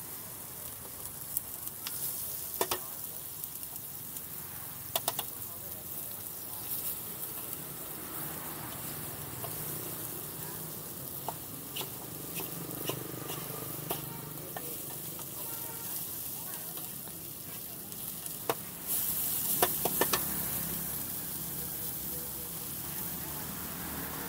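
Bean sprouts and greens sizzling as they are stir-fried in a large, flat, wide wok, with a metal spatula scraping and clicking against the pan. The sizzle flares louder about three-quarters of the way through.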